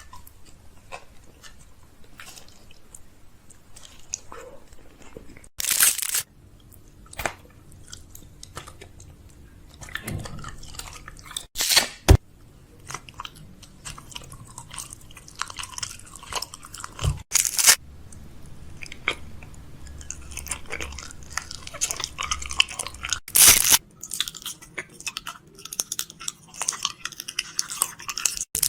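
Close-up chewing and crunching: quieter irregular chewing clicks, with a loud sharp crunch about every six seconds.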